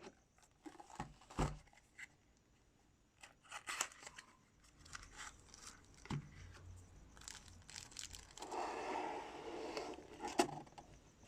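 Packaging being opened by hand: scattered clicks and handling noises, then a longer stretch of tearing and crinkling about eight seconds in, ending with a sharp click.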